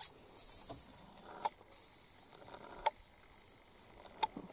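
Quiet forest ambience: a faint, steady high insect drone, a short hiss in the first second, and four or five faint scattered clicks.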